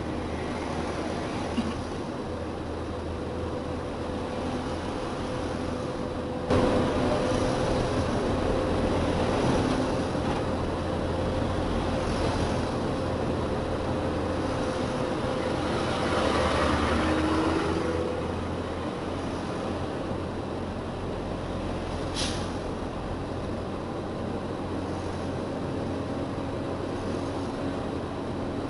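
Truck engine running and road noise, heard from inside the cab while driving. It gets suddenly louder about six seconds in and stays louder for around ten seconds, with a single sharp click later on.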